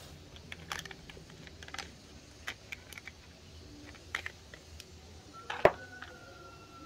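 Small plastic toys being handled: scattered light clicks and taps, with one sharper knock about five and a half seconds in.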